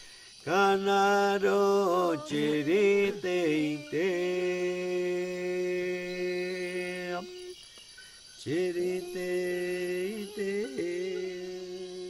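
A single voice chanting in bending, melismatic phrases, with one long held note in the middle. The chant breaks off briefly about seven seconds in and then resumes.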